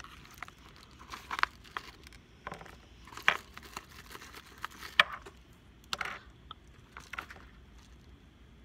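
Padded mailer envelope and plastic toy packaging crinkling and rustling as they are handled, in irregular short bursts, the sharpest about three and five seconds in.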